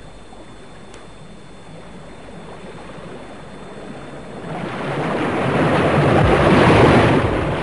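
Rushing whitewater of river rapids, faint at first and then swelling to a loud, steady rush about four and a half seconds in.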